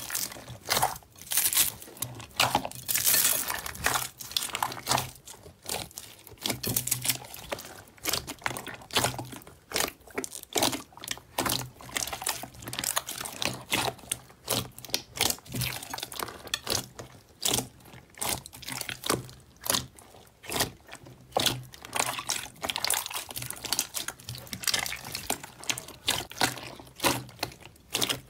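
Pale blue slime mixed with white foam beads being kneaded, squeezed and poked by hand: wet squishing with irregular crackles and crunches, several a second.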